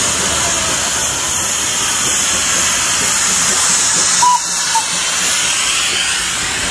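Steady loud hiss of steam from a Darjeeling Himalayan Railway B-class 0-4-0 saddle-tank steam locomotive passing close by. Two short high squeaks come about four and a half seconds in.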